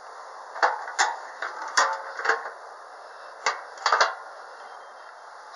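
Several sharp knocks and clicks at uneven intervals, in two clusters: one from about half a second to two and a half seconds in, another around three and a half to four seconds in. One knock leaves a brief ring.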